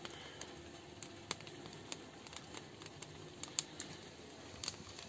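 Wood fire crackling under the cooking pots: scattered, irregular sharp pops and ticks over a faint steady hiss.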